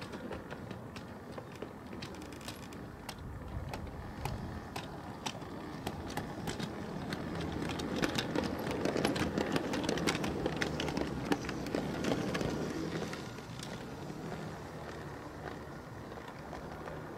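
Full-size Setesdalsbanen heritage train passing: a steady running sound that builds to its loudest about eight to twelve seconds in and then eases off, with many sharp clicks and rattles throughout.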